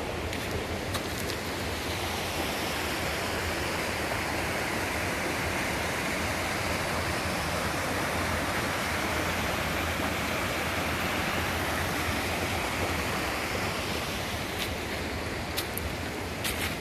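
Small rocky forest stream rushing and splashing over a little cascade, a steady rush that swells in the middle and eases toward the end. A few light clicks sound near the start and near the end.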